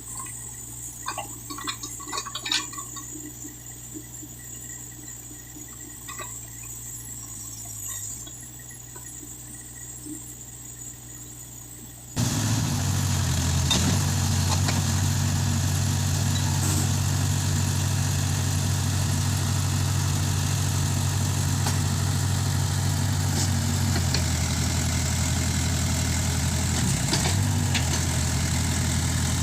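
Case 580K backhoe's diesel engine idling steadily, faint at first with a few light clicks near the start, then suddenly much louder about twelve seconds in and holding a steady low idle.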